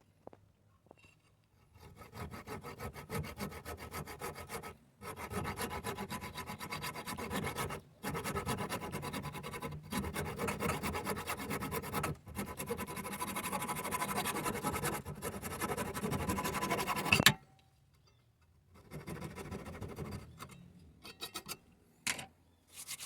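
Hand tool working a wooden screw-hole plug in quick back-and-forth rasping strokes. It runs in several long stretches with brief pauses, then stops; a shorter burst follows near the end.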